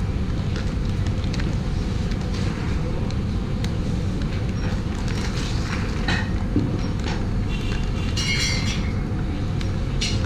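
Plastic packets of cashew nuts being slit open with a knife and handled, with short crinkles and clicks, over a loud, steady low mechanical rumble.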